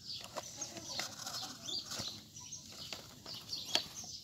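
Birds chirping in short repeated calls, with a few sharp clicks of plastic as a toy excavator's arm is worked, the loudest click near the end.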